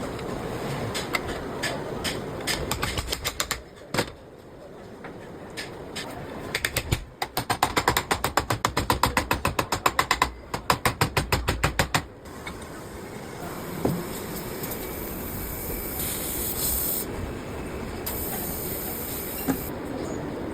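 Workshop tool noise during shock absorber work: a dense run of rapid, evenly spaced clicks for about five seconds in the middle, with a shorter burst of clicks before it and a high hiss later on.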